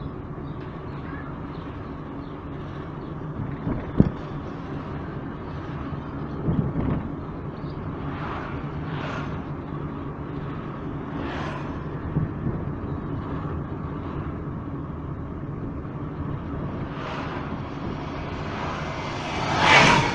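Car driving along a town street: steady engine and road noise, with a sharp click about four seconds in and a few vehicles passing the other way, the loudest near the end.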